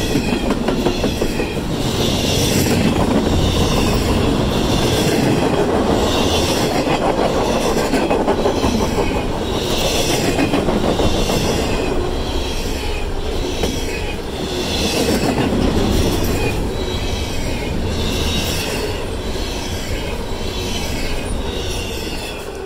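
Double-stack intermodal freight cars rolling past close by: a steady, loud rumble of steel wheels on rail with clickety-clack over the joints, and a higher-pitched sound that swells and fades about once a second. The noise drops off sharply at the very end as the last car goes by.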